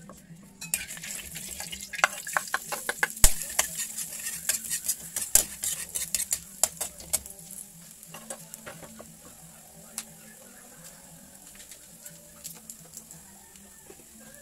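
Chopped garlic and onion sizzling in hot oil in a wok, starting about a second in. For the first several seconds a utensil clicks and scrapes against the pan as they are stirred. After that the sizzle goes on quieter and steadier, with only a few clicks.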